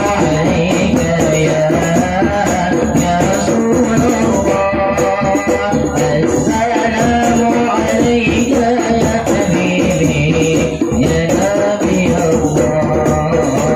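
Sholawat devotional music: a melody that bends in pitch, carried over steady, rapid hand percussion.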